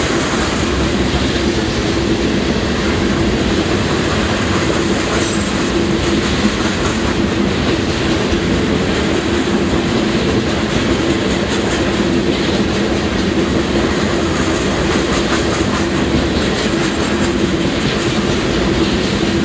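Freight train of open-top hopper cars rolling past: a steady, loud rumble of steel wheels on rail, with irregular clacking over the rail joints.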